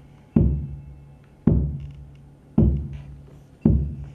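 A deep drum-like beat struck slowly and evenly, four times about a second apart, each hit dying away with a low ringing tone: a percussive music cue playing under the stage action.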